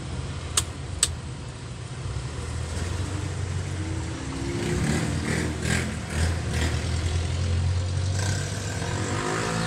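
A motor vehicle engine running and revving, rising in pitch near the end, over a steady low hum. Two sharp clicks come about half a second and one second in.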